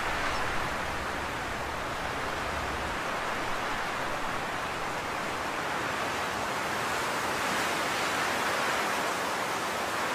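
Steady, even hiss of background noise, with no distinct strokes or clicks; a low rumble beneath it drops away about three seconds in.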